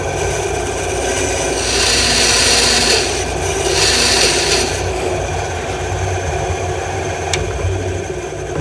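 Small bandsaw running steadily, its blade cutting into a wooden board twice, from about two to three seconds in and again from about three and a half to five seconds; the motor keeps running after the cuts, with a single click near the end.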